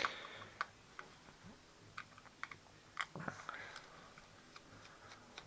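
Sparse, faint clicks and light taps of a small Mitutoyo digital indicator being handled, scattered irregularly, with a somewhat louder click about three seconds in.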